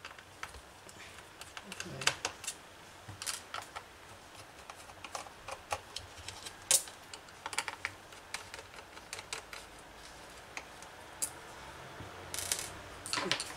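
Irregular small clicks and taps of fingers working a laptop's plastic underside, prying off its rubber feet and setting the small parts down, with a quick run of clicks near the end.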